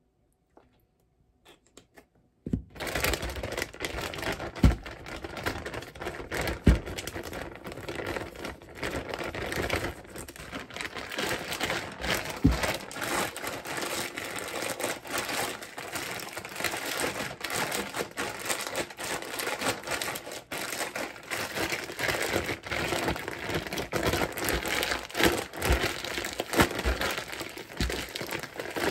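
Plastic bag of chopped garlic-chive mixture being squeezed and kneaded by hand, crinkling continuously from about two and a half seconds in, with a few short knocks.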